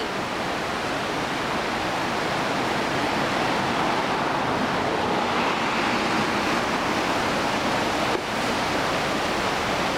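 Potomac River in flood, fast churning high water rushing over Little Falls, making a steady, loud rush of water noise.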